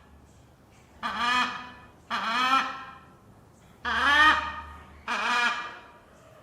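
Parrot squawking: four loud, harsh calls, each under a second long, separated by short pauses.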